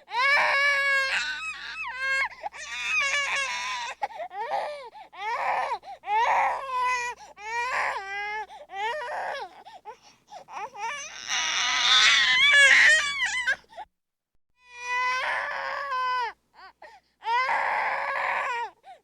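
Baby crying in frustration: a run of wailing cries with a wavering pitch, broken by short catches of breath, growing loudest and hoarsest about eleven to thirteen seconds in, then stopping briefly before two more cries.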